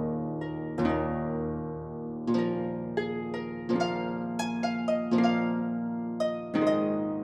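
Background music: plucked harp-like notes in an unhurried melody, each note ringing on as it fades.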